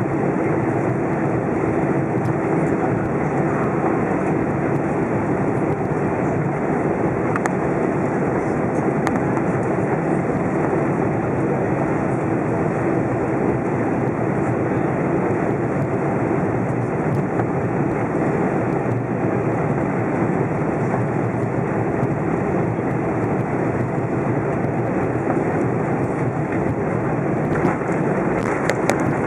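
Steady cabin noise inside an Airbus A320 taxiing: the engines running at low power under a constant rush of air, with a steady low hum.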